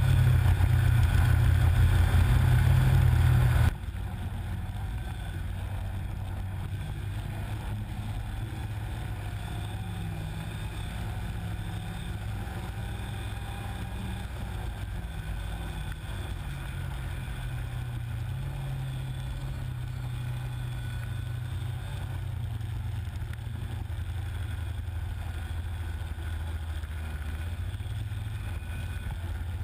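Snowmobile engine running while riding through deep powder, a steady drone whose pitch shifts slowly with the throttle. It is much louder for the first few seconds, then drops suddenly to a quieter, steady running.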